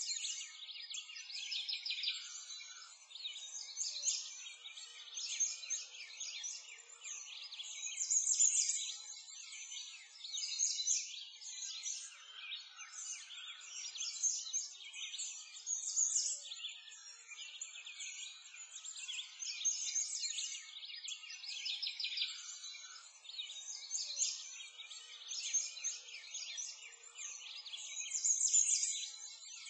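Many birds chirping continuously in a dense chorus of quick, high calls.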